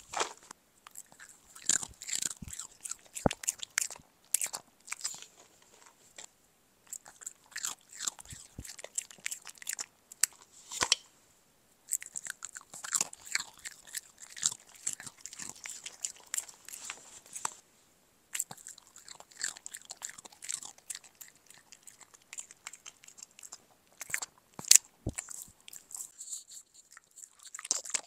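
A Shih Tzu's mouth and nose sounds picked up at close range by a clip-on microphone: wet licking and lip-smacking mixed with snorts. They come in irregular runs of quick clicks broken by short pauses.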